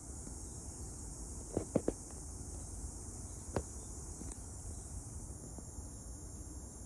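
Steady, high-pitched insect chorus of crickets or similar insects, over a low rumble. A few short sharp clicks or snaps come in a quick cluster about one and a half seconds in and once more a couple of seconds later.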